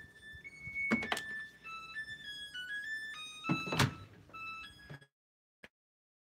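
Music with a simple melody of single high notes stepping up and down, with sharp thumps about a second in and a heavier thump just before four seconds. About five seconds in, the sound cuts out to dead silence, broken by a single click.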